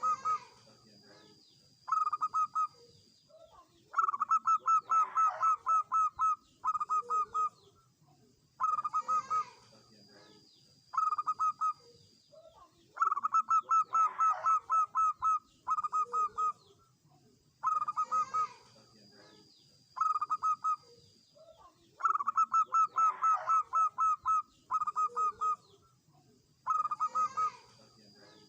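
Zebra dove cooing: short phrases of rapid staccato coos. Each cycle includes a longer fast run of about eight notes, and the song pattern repeats about every nine seconds.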